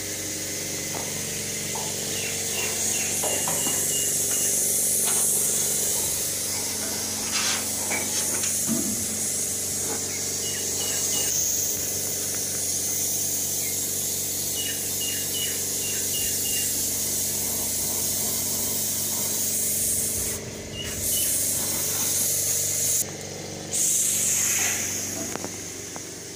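Compressed-air paint spray gun hissing steadily while spraying the underside of a tractor trolley, cutting off twice briefly near the end as the trigger is released, over a steady engine hum.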